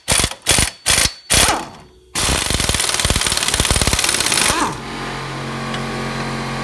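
Pneumatic impact wrench with a 21 mm socket zipping off the tie-rod-end and lower ball joint nuts: several short rapid-fire bursts of hammering, then one continuous run of about two and a half seconds. After it stops, a steady low hum.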